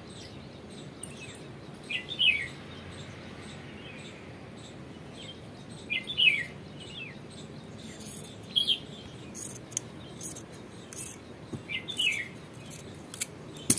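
Bird chirping: short falling chirps, often in pairs, recurring every few seconds, over faint rustling and clicks from cloth and scissors being handled.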